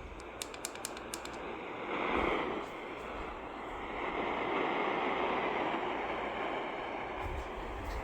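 A quick run of clicks in the first second or so, then a steady hiss of radio static that swells and eases.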